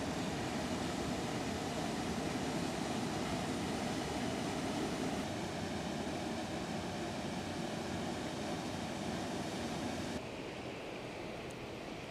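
A waterfall rushing over rock: a steady, even wash of falling water that drops suddenly to a quieter hiss about ten seconds in.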